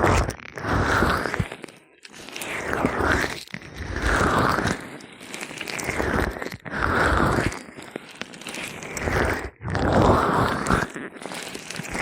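Gloved hands rubbing oil over a microphone's ear in slow, squelchy strokes, each swelling and fading, about one every second and a half.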